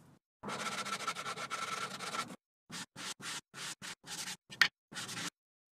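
Sandpaper on a hand sanding block rubbed over the rounded end of a wooden board. There are about two seconds of continuous fast scratchy rubbing, then a series of short separate strokes, one near the end louder than the rest.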